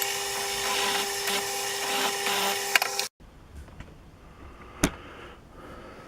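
An electric motor runs steadily with a constant hum, with a few light clicks. It cuts off abruptly about three seconds in. A single sharp knock follows near the end.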